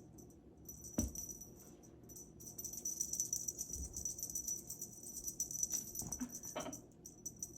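A small bell jingling in quick, continuous shakes for about four seconds, after a single sharp click about a second in.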